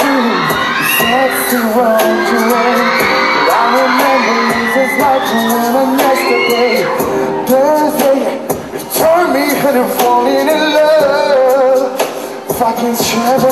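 Male pop singer singing live into a handheld microphone over a pop backing track, with the audience cheering.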